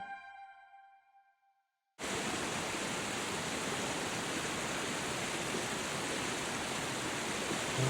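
Last notes of music dying away, then the steady rush of a waterfall cutting in suddenly about two seconds in.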